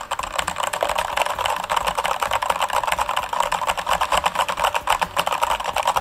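Computer keyboard keys hammered as fast as possible, a dense continuous clatter of key presses at roughly 25 to 28 a second.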